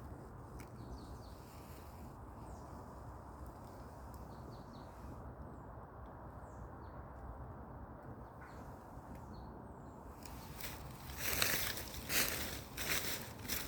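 Outdoor woodland ambience: a steady low rush of background noise with faint, scattered bird chirps. A few louder rustling bursts come near the end.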